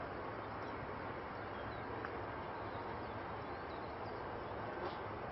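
Steady hiss with a low hum from an air traffic control radio recording in a gap between transmissions, with a brief click near the end.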